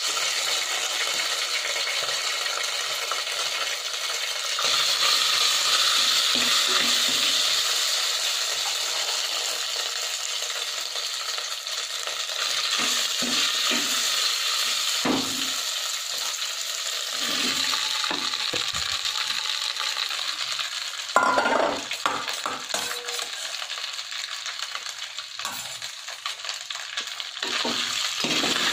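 Hot oil sizzling steadily in an earthenware pot with spluttered mustard seeds and urad dal, as pieces of steamed rice dumpling are dropped in. Scattered short knocks and clinks come and go, the sharpest about two-thirds of the way through.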